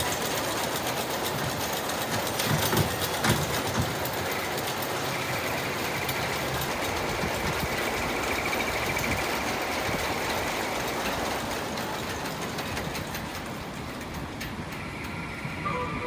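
Steel roller coaster train climbing its lift hill: the lift gives a steady, rapid clicking and clattering, with a few louder knocks a few seconds in.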